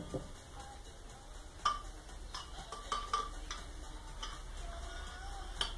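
Irregular sharp metal clicks and knocks from a Honda Tornado's front fork leg being handled while its damper rod is fitted inside the tube.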